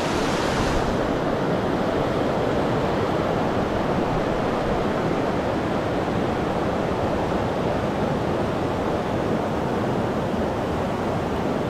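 A shallow, rocky mountain river running fast over stones in riffles: a steady rush of water.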